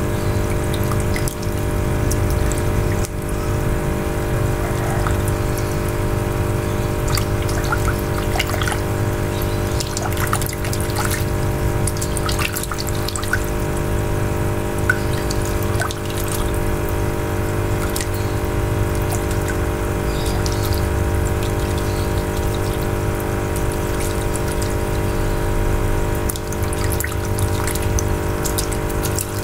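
Small splashes, drips and trickling of water as a hand works a crayfish about in a shallow tub, over a steady machine hum that runs throughout.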